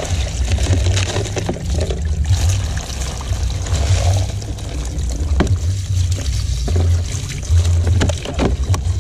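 Water from a garden hose splashing and trickling into the plastic bed of a toy dump truck as it is rinsed and rubbed by hand, with a few sharp knocks of the plastic. A steady low rumble runs underneath.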